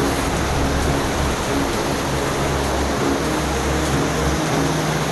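A river in spate rushing past: a loud, steady noise of fast, flooding water.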